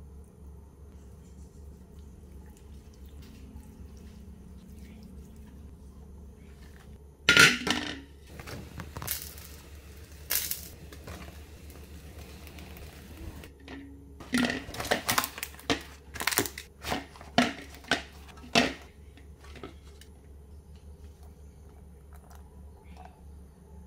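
Gas stove burner lit with a sudden loud click, its flame hissing for about six seconds before it cuts off suddenly. Then comes a run of about a dozen sharp clicks and crackles over several seconds.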